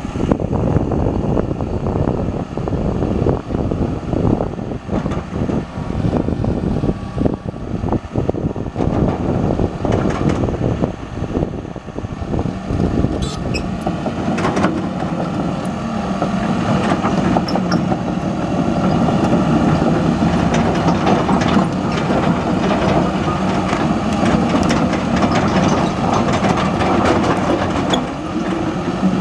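Diesel engine of a John Deere 210G LC excavator running, with knocks and rattles. About halfway through it settles into a steadier, slightly louder drone.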